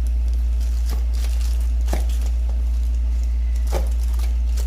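Cardboard box being opened and handled: scattered light clicks and rustles of cardboard and packing, over a steady low hum.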